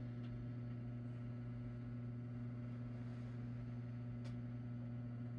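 Steady low electrical hum, a constant low drone with a second tone an octave above it, and a faint click about four seconds in.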